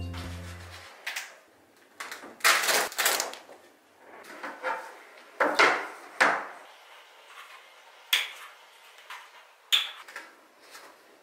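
Papers and a framed cork board being handled on a table: bursts of paper rustling and sliding, with a few sharp clicks and knocks. A music tail fades out in the first second.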